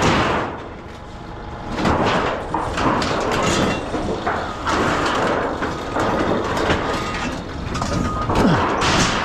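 Scrap sheet metal clattering and scraping as pieces are handled and dropped, in irregular bursts. From about six seconds in, a vehicle's reversing beeper sounds faintly.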